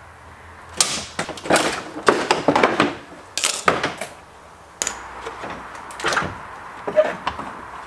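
Plastic Nissan Skyline front bumper cover being unclipped and pulled off a car: irregular knocks, clicks and rattles in short clusters, with a denser stretch of rattling in the first few seconds.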